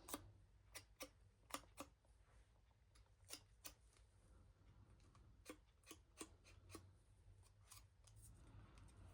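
Faint, scattered sharp snips and clicks of hand craft work on paper, about a dozen over nine seconds, some in quick pairs.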